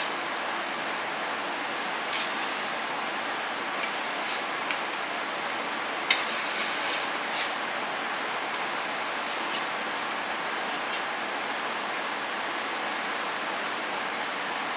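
Short scraping strokes of a flat blade spreading and smoothing a thick paste, with two sharp clicks a little before the middle, over a steady background hiss.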